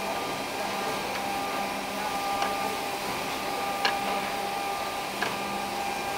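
Woodworking power feeder running steadily with a motor hum, with a short click about every one and a half seconds.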